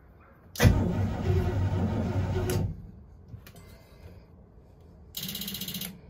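Starter cranking the 1979 Bertram 28's Crusader marine engine for about two seconds, stopping without the engine catching. A short buzz follows near the end.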